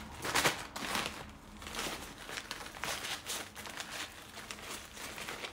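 Stiff sego gele headwrap fabric rustling and crinkling in irregular bursts as it is tucked and pressed into place by hand, loudest about half a second in.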